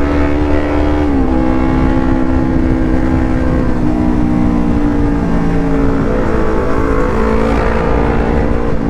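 Yamaha R25's parallel-twin engine running at speed on the road. Its pitch steps down about a second in, sags through the middle and climbs again near the end, over steady wind noise.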